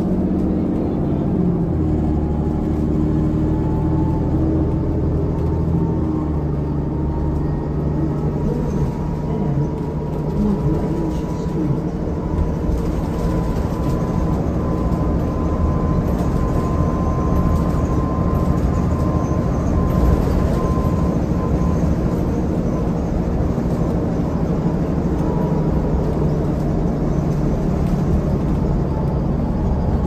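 Inside the cabin of a New Flyer D40LFR diesel transit bus under way: the Cummins ISL diesel engine running with steady road rumble, and a thin whine from the drivetrain that rises slowly in pitch as the bus gathers speed, then holds steady.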